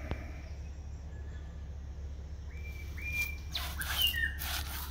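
A bird calls in the second half: a short level whistle-like note, then around four seconds in a brief note that falls in pitch. Alongside the second call there is rustling as a hand brushes over the engine's metal nameplate.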